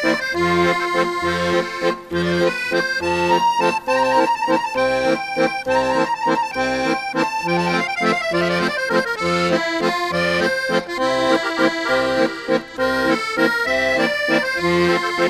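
Background music: an instrumental tune with a steady, regular beat.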